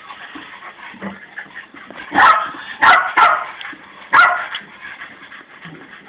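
Wire fox terrier giving four short, sharp barks, starting about two seconds in, with a pause before the last. It is barking to be let in through the door.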